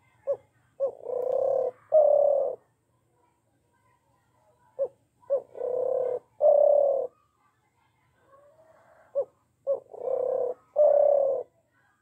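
Spotted dove cooing: three phrases a few seconds apart, each made of two short notes followed by two longer coos.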